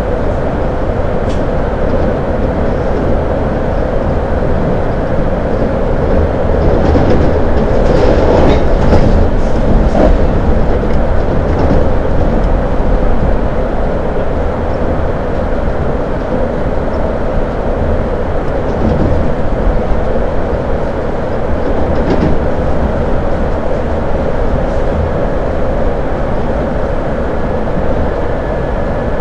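CPTM series 2100 electric multiple unit running at speed, heard from inside the carriage: a steady rumble of wheels on rails and running gear. It gets a little louder about a quarter of the way in, with a few sharp clacks over rail joints then and again around two-thirds of the way through.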